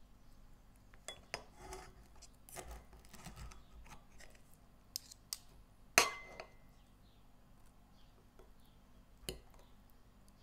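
Fork and knife cutting a portion of baked vegetables and toasted bread on a porcelain plate: soft scraping with scattered clicks of metal on the plate, the loudest a sharp ringing clink about six seconds in.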